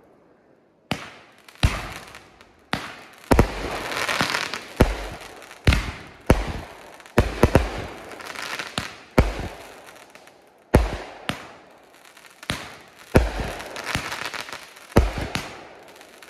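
A 500g consumer firework cake (Blond Joke) firing, starting about a second in: a run of loud, sharp bangs every half second to a second, each trailing off in an echo, with a hissing crackle between the shots.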